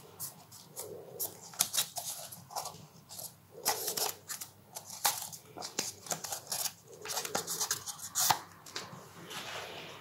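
Stiff paper rustling and crinkling as a pleated paper accordion is handled, squeezed and pulled open, in short irregular crackles and clicks.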